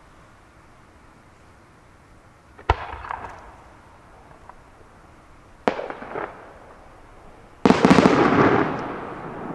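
Aerial fireworks going off: a sharp bang about three seconds in, a second bang about three seconds later, then a louder, longer burst that dies away over about a second and a half near the end.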